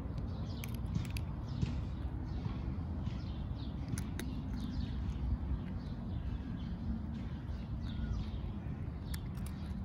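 Cat crunching dry kibble, with a handful of sharp crunches, over birds chirping and a steady low outdoor rumble.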